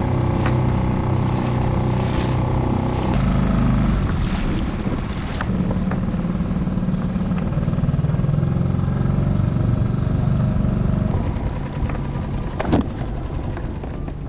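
Small skiff's outboard motor running under way, its pitch shifting a few times and easing off near the end. A single sharp knock comes near the end.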